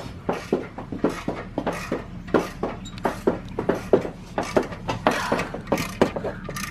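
Irregular metallic clinks and knocks of hand tools working on the truck's engine, about two or three a second, over a steady low hum.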